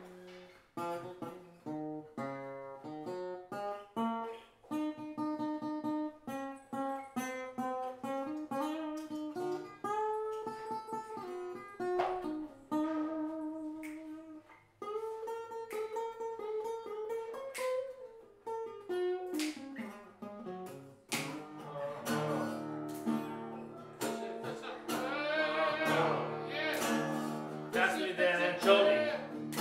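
Improvised acoustic guitar music on a koa-wood guitar: picked single notes and short melodic runs at first, then fuller strummed chords that get louder about two-thirds of the way through.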